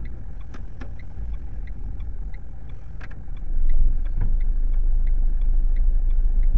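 Car engine running inside the cabin, rising in level about three and a half seconds in as the car pulls away from the kerb, with the turn-signal indicator ticking steadily, about three ticks a second.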